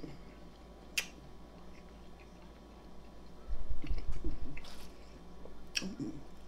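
Close-miked eating sounds: chewing with a couple of sharp wet mouth clicks, one about a second in and one near the end, and a cluster of low thuds in the middle.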